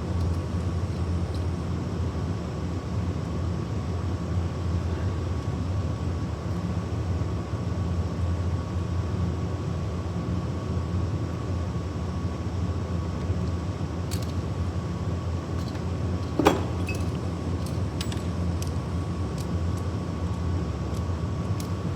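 A steady low hum with a faint high whine, broken by a few light clicks and one sharper click about two-thirds of the way through, as a copper-tube flaring tool is twisted down.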